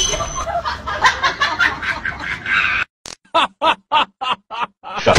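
Laughter in quick repeated bursts. About three seconds in it breaks off and a run of about eight short, separate laughs follows, roughly four a second.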